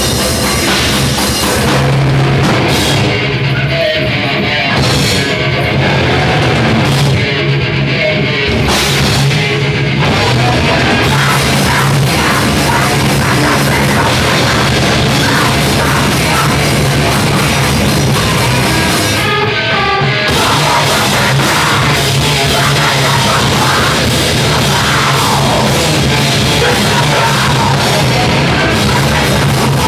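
Loud rock music, heavy-metal style, with a drum kit, distorted guitars and a steady bass line.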